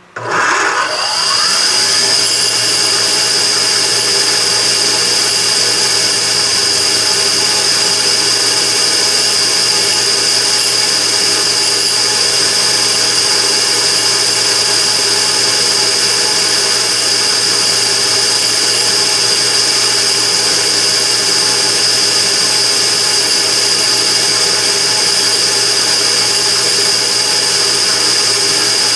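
Immersion-tube gas burner starting up and then running steadily and loudly, with a strong high-pitched whine over a many-toned hum. This is the abnormal noise the burner is making.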